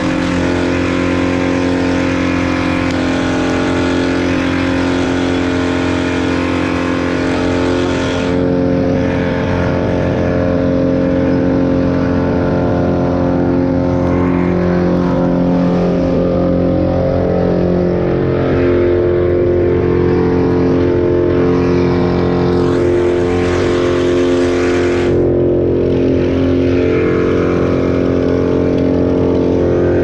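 An engine running steadily at constant speed, with no revving or changes in pitch.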